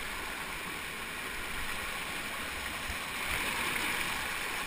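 Canyon stream water rushing and splashing over rocks close to the microphone, a steady rush that grows a little louder about three seconds in.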